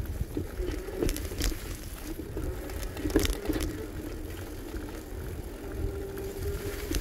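Electric bicycle riding along a trail: tyre rumble and wind on the microphone under a steady hum. A few sharp rattles come about a second in, again half a second later, and again about three seconds in.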